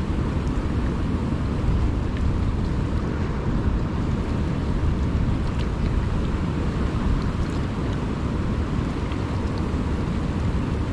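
Steady wind buffeting the microphone, over choppy water lapping against the rocky shore.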